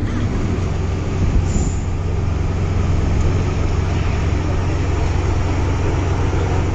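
Hong Kong MTR M-Train heard from inside the passenger car while running through a tunnel: a steady rumble of wheels and traction motors with a low hum, and a single brief knock a little over a second in.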